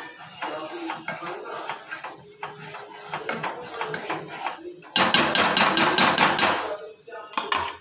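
A metal ladle stirring and scraping a thick curry in a steel pot, with light scattered clinks. About five seconds in comes a loud rapid clatter of metal on metal lasting about a second and a half, and a shorter burst of clatter near the end.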